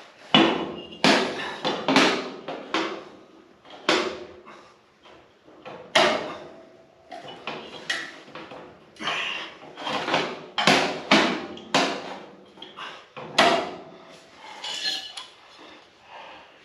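Irregular metallic clanks and taps, about one a second, each with a short ring: sheet-metal work on a truck fender.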